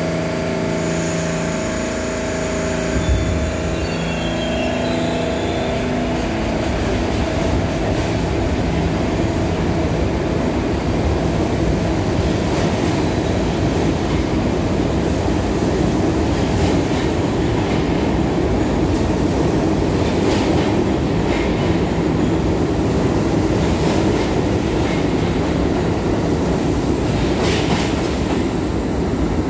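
R68 subway train pulling out of an underground station. There is a steady hum while it stands for the first few seconds, then the rumble of the cars rolling past builds up, with a few clacks over the rail joints in the second half.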